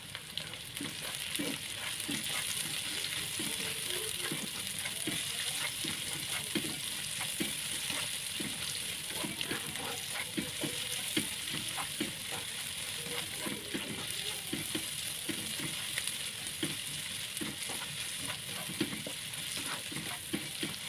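Sliced garlic, shallots, onion, chilies and ginger sizzling in hot oil in a pan as a steady hiss, with frequent irregular scrapes and knocks of a spatula stirring them. They are being sautéed until fragrant and wilted.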